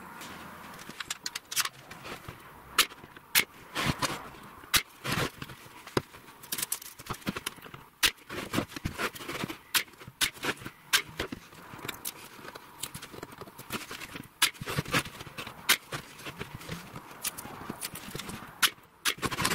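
Irregular sharp clicks and knocks, several a second, from a pin nailer and bar clamps being worked on a clamped wooden frame.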